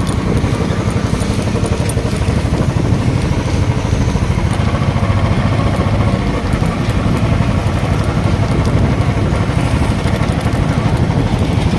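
Motorcycle engine running steadily while riding along, a constant low rumble with road and air noise.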